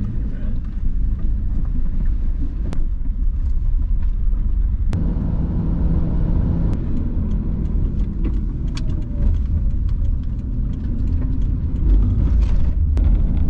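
Road and engine rumble inside a moving car's cabin, a steady low drone whose tone shifts abruptly a few times where the footage is cut. A few light ticks come through in the later part.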